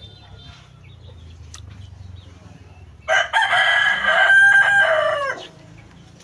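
Rooster crowing once: a single loud cock-a-doodle-doo of about two and a half seconds, starting about three seconds in.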